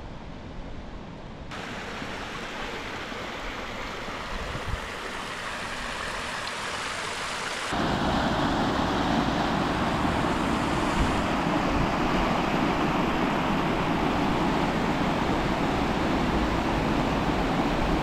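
Steady rushing water, getting suddenly louder about a second and a half in and again about halfway through.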